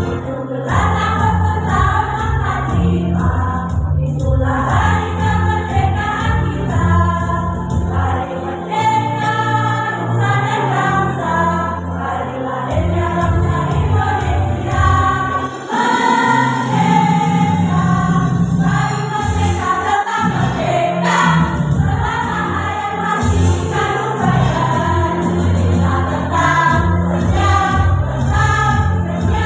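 A women's choir singing in unison and harmony over an instrumental accompaniment with a deep bass line and a steady beat.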